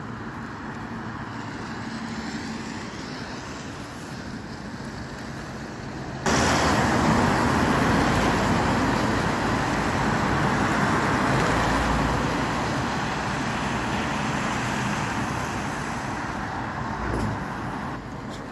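Road traffic on a wet road: engines running and tyres hissing through standing water. The noise jumps abruptly louder about six seconds in and drops back just before the end.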